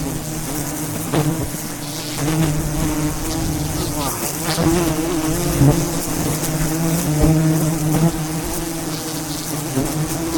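Swarm of wild bees buzzing loudly and steadily, their many wings making a droning hum that wavers slightly in pitch.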